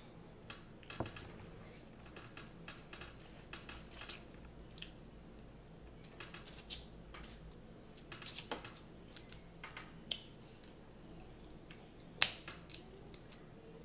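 Eating snow crab legs: scattered wet mouth and chewing sounds with small clicks and crackles of crab shell, and one sharp crack near the end as a leg shell is snapped apart by hand.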